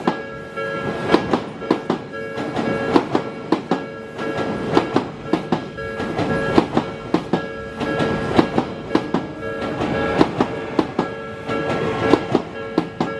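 Odakyu 3000-series eight-car train's wheels clacking over rail joints in a steady run of sharp clicks, many in close pairs as each bogie's axles cross a joint. Several steady tones carry on underneath.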